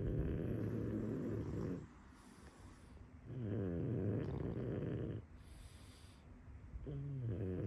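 A pug, a flat-faced breed, snoring in its sleep: three long buzzing snores, each nearly two seconds, about three and a half seconds apart, with quiet breaths between them.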